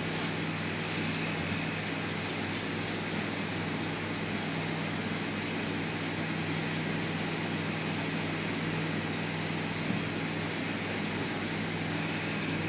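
A steady low hum with a hiss over it, unchanging throughout.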